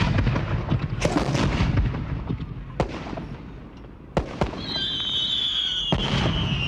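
Six sharp gunshots at uneven intervals, two of them close together just past the four-second mark. From about halfway a long, high whistle slowly falls in pitch and carries on under the later shots.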